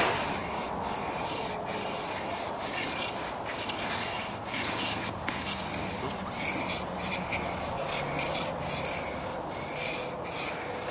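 A blade clamped in a honing jig being pushed back and forth across a sharpening stone: a steady scraping rub with a short break at each change of stroke, roughly once a second.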